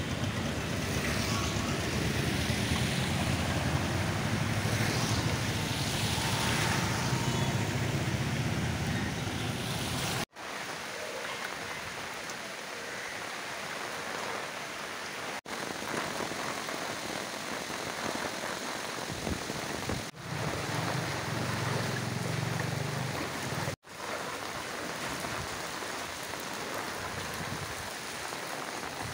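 Rain pouring onto flooded streets: a steady hiss of rain and water, with a low rumble beneath it for the first third. It is broken by four sudden brief dropouts.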